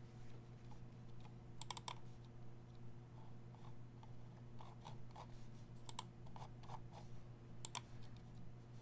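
Faint computer-keyboard typing: scattered light key clicks with a few sharper clusters of taps, over a steady low electrical hum.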